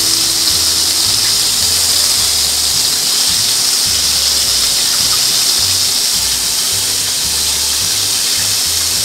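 Small pieces of chicken coated in wheat and rice flour deep-frying in a wok of hot oil, with a steady loud sizzle. Background music with a bass line plays underneath.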